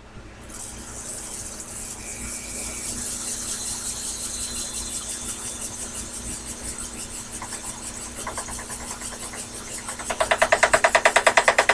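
Sherline mini lathe running with a steady hum. Faint regular ticking starts about eight seconds in, and about ten seconds in it turns into a loud, rapid, even tapping. This is an interrupted cut: the lathe tool strikes the workpiece on only part of each turn.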